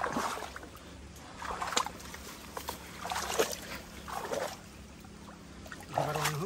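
Bare feet squelching on wet, slippery mud and brushing through leafy undergrowth in a few irregular steps. A short vocal sound comes near the end.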